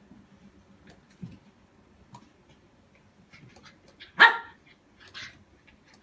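A dog barks once, a single short sharp bark, followed about a second later by a softer, noisier sound, with faint clicks and knocks around it.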